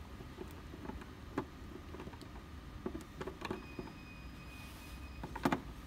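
Scattered small clicks and taps of a long screwdriver turning a screw in a humanoid robot's plastic back shell, with the loudest pair of clicks near the end. A faint steady high whine sounds for about a second and a half in the second half.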